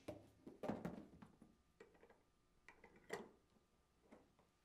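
Faint handling of an inflatable kayak's plastic recessed air valve and cap: a few soft clicks and rustles, the clearest near three seconds in.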